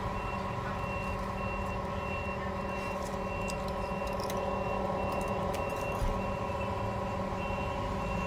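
Steady electrical hum of a phone-screen separator machine, with a short high electronic beep repeating about twice a second.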